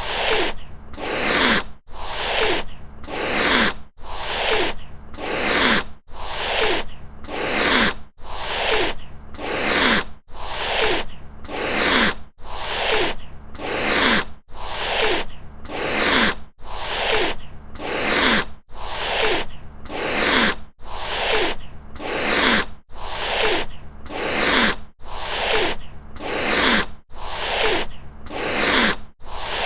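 Angry cat hissing over and over, a pair of harsh hisses about every two seconds with brief breaks between pairs, in an even repeating pattern.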